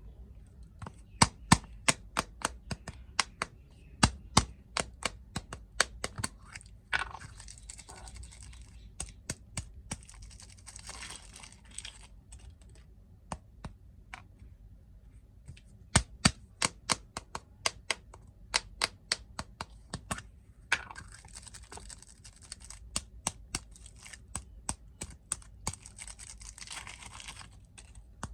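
Snack packaging being handled: runs of sharp clicks and taps, with two longer spells of plastic wrapper crinkling and tearing.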